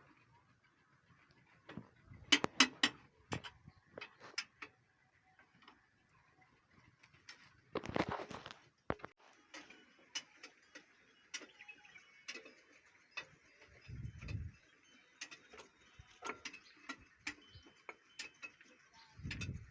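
Hand tools and tractor gearbox parts clicking, tapping and knocking at irregular intervals, with a longer scraping rattle about eight seconds in and dull thuds near 14 seconds and again near the end.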